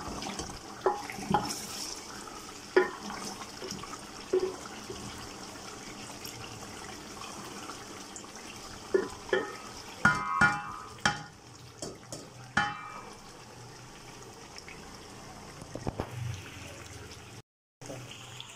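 Chicken frying in oil in a large aluminium pot, a steady sizzle now that its cooking water has dried off, the browning (bhuna) stage. In the first few seconds a wooden spoon stirs and knocks against the pot several times.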